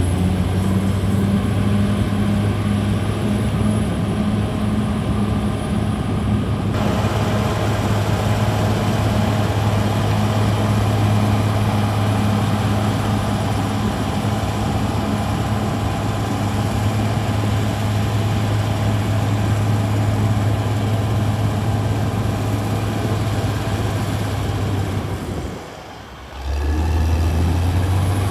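Diesel engine of a Caterpillar D6R XL bulldozer running steadily with a low, even hum. The sound drops briefly near the end, then comes back.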